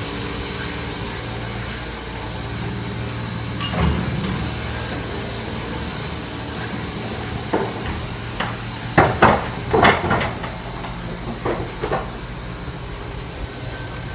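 Hotel ice machine giving a steady low hum. A single clunk comes about four seconds in, then a run of sharp knocks and clunks a few seconds later.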